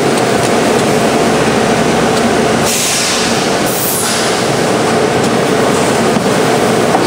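Form-fill-seal packaging machine running with its printed film advancing: a steady machine din, with a hiss about three seconds in lasting about a second and a half.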